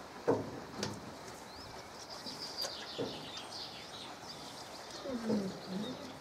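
Small birds twittering, with a dove cooing near the end. A short sharp knock just after the start is the loudest sound.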